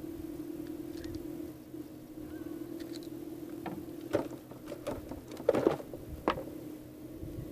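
A steady low motor drone runs throughout. Over it come a few sharp knocks and clatters of metal pliers and tackle against the wooden boat, loudest from about four to six and a half seconds in, as a hook is worked out of a freshly caught fish.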